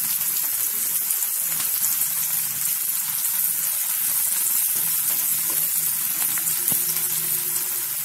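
Thinly sliced onions sizzling steadily in hot mustard oil in a nonstick kadai as they are fried toward golden, with a spatula stirring them around midway.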